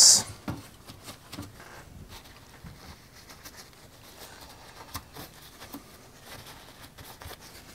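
Faint rubbing and small scattered taps of a tissue wiping the plastic inside of a Commodore 64 case, cleaning the snapped stand-off stubs before they are glued.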